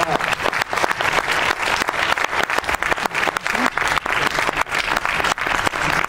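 Audience applauding: dense, steady clapping from a full house.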